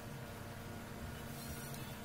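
Steady low background hum with a faint even hiss and no distinct handling sounds.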